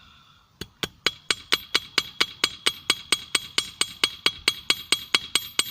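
Hammer blows on a small steel anvil in a fast, steady rhythm of about four to five strikes a second, each with a bright metallic ring. This is a hot screw being hammered out into a blade.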